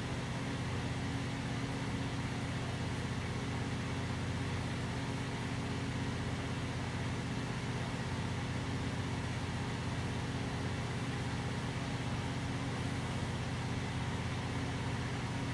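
Steady low mechanical hum, unchanging throughout, like a running fan or air-handling unit.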